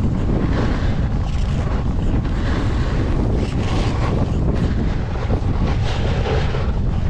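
Wind buffeting the microphone of an action camera carried by a skier moving at about 20 mph: a loud, steady low rumble. Over it come irregular hissing surges of skis carving and scraping across packed, groomed snow.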